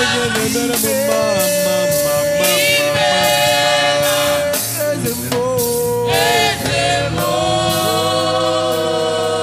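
Gospel worship song: singing with long held, sliding notes over a band, drums keeping a steady beat.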